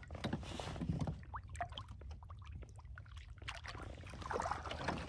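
Lake water splashing and dripping around a hand held over the side of a canoe as a chain pickerel is released, many small drips and sloshes, with a fuller swirl of water near the end as the fish swims off.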